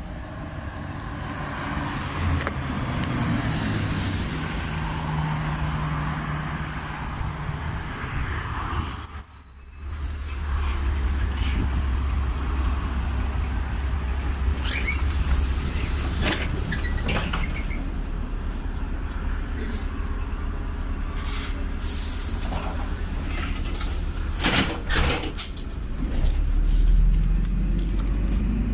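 A LiAZ 5292.67 city bus, with a YaMZ-53624 engine and ZF automatic gearbox, pulls in to a stop, with a loud hiss of compressed air about nine seconds in. Then, heard from on board, its engine runs with a steady low rumble, with a few knocks from the doors. Near the end the bus pulls away and the engine note grows louder.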